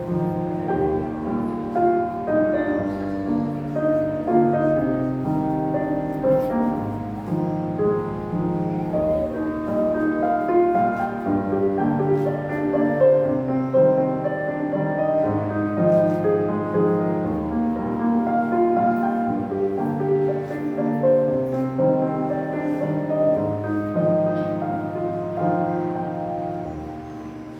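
Instrumental music: a melody of separate notes over lower held tones, fading down near the end.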